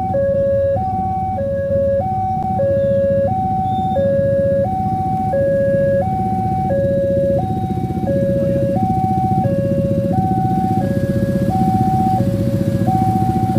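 Indonesian railway level-crossing alarm sounding its two-tone warning, alternating steadily between a higher and a lower pitch about every two-thirds of a second. Beneath it runs a steady low rumble that grows heavier and more pulsing about eight seconds in.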